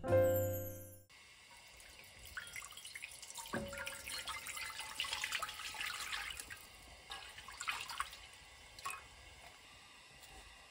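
Water poured from a glass bowl into a large enameled cast-iron pan, splashing steadily for several seconds, then a couple of smaller splashes near the end as things go into the water. Piano music ends about a second in.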